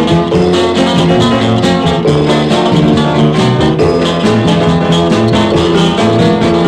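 Instrumental passage of a 1960s psychedelic folk-rock song: strummed guitars with bass and drums keeping a steady beat, no vocals.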